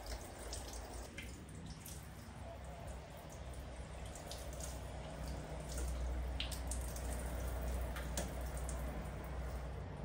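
Water dripping in a small tiled bathroom: scattered sharp drips over a low, steady background.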